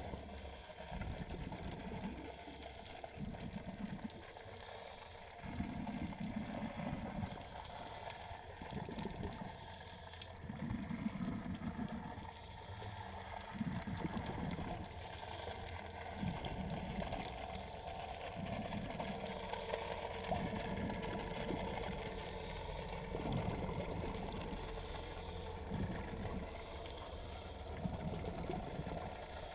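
Underwater water noise: low surging gurgles that swell and fade about every second and a half to two seconds, with faint hissing at intervals.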